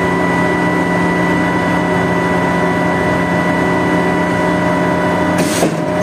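Putzmeister concrete pump truck's engine and hydraulic system running steadily with a constant whine, its accumulator pressure low (about 120 bar instead of 200), which the operators blame on a worn accumulator pump. A short hiss comes about five and a half seconds in.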